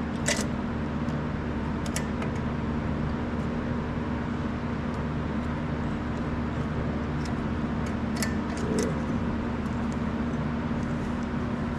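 A steady low mechanical hum from a running machine in the background, with a few short metallic clicks and taps as a small engine's carburetor is fitted into place by hand.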